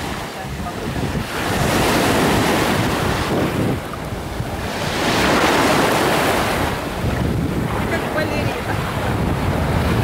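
Small sea waves breaking and washing up the sand at the shoreline, the rush of foamy surf swelling and easing with each wave, with wind buffeting the microphone.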